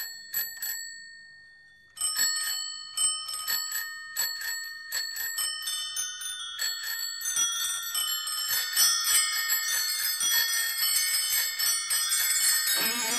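Many bicycle bells ringing, struck one after another and left to ring so that they overlap. There are a few rings at first, then from about two seconds in they grow steadily denser: the bell interlude of a recorded rock song. The band comes back in with guitar near the end.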